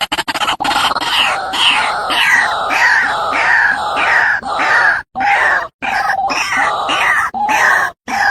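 White-breasted waterhen giving its harsh, repeated calls, about two a second, as a bird-lure recording. The calls break off briefly with short cuts about five and six seconds in and near the end.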